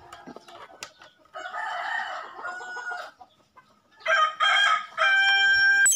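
A rooster crowing twice; the second crow is louder and ends on a long held note.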